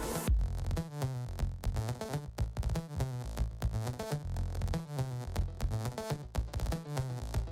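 Background electronic music with a steady beat and pulsing synth bass.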